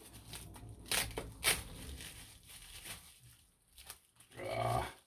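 Parcel packaging being handled and crumpled, a crackly rustle with two sharper crackles about a second in and again half a second later. A short voiced sound from a person near the end.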